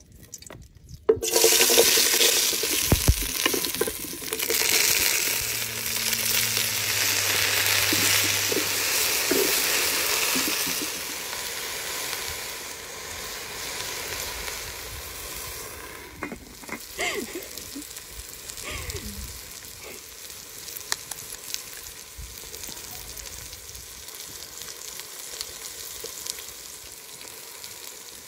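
Food hitting hot oil in an aluminium pot over a wood fire: a sudden loud sizzle about a second in, then frying mallow greens sizzling steadily as they are stirred with a wooden spoon. The sizzle eases off through the second half, with a few light knocks part-way through.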